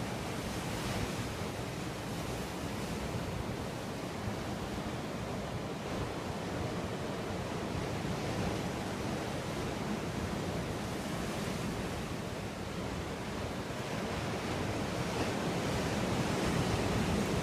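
Ocean surf washing steadily against a rocky shore, mixed with wind, swelling a little near the end.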